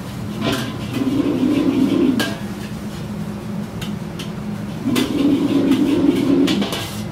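A metal ladle clanking and scraping against a steel wok as fried rice is stir-fried and tossed over a wok burner, with a steady low roar underneath. There are sharp clanks at irregular intervals, and two longer stretches of rough scraping, about a second in and again around five seconds in.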